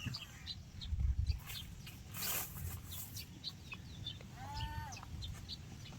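Small birds chirping, with one drawn-out animal call about four and a half seconds in, over a low rumble.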